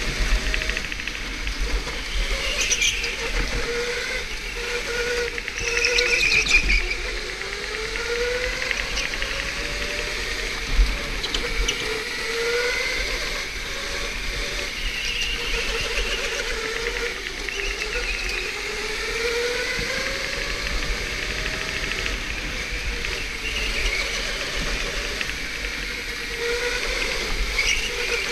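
Electric go-kart motor whining, its pitch rising and falling again and again as the kart speeds up out of corners and slows into them, over a steady hiss.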